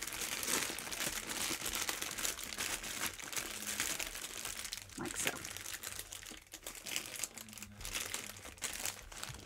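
Large plastic Ziploc bag crinkling and crackling irregularly as hands squeeze the air out of it, louder at first and thinning out toward the end.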